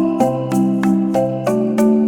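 Background music: a light melody of short struck notes over held chords that change every half second or so.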